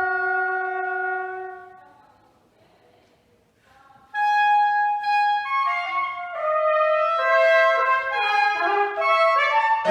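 Trumpet and clarinet holding long notes that fade away about two seconds in, then a pause of near silence. At about four seconds the instruments come in suddenly with a line of quick, changing notes that runs on.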